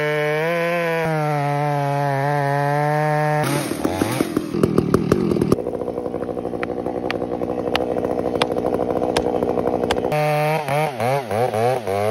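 Stihl MS 881 chainsaw's large two-stroke engine running at high revs, cutting into a big tree stump. About four seconds in it drops to a steady, lower, pulsing idle. From about ten seconds in it revs up and down several times, then holds high again as it cuts.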